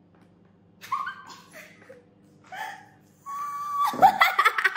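Young girls' voices: a couple of brief vocal sounds, then near the end a long high-pitched held squeal breaking into loud excited vocalizing.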